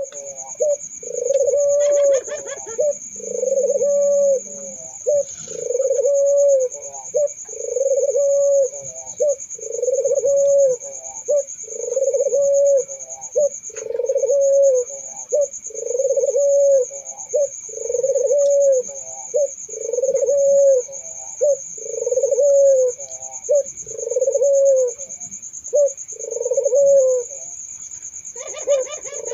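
Barbary doves (burung puter) cooing: a low coo phrase repeated about every two seconds, each a short note followed by a longer, rolling one. A steady high-pitched whine runs underneath.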